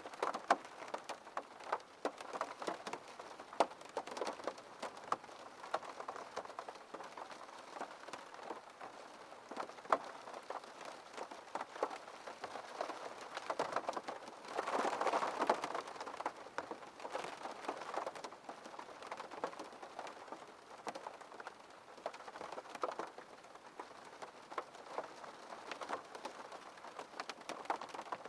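Rain falling on a window, with many separate drops tapping the glass over a steady hiss of rainfall. It grows heavier and louder for a couple of seconds about halfway through.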